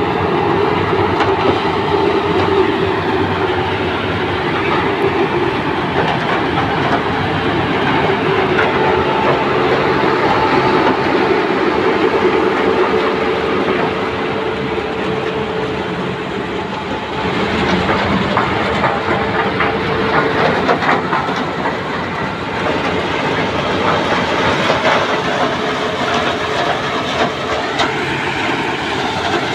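Sugarcane chopper harvester cutting cane, with a tractor running alongside it: a loud, steady engine drone with a continuous mechanical rattle from the cutters and elevator. The noise turns harsher a little past halfway.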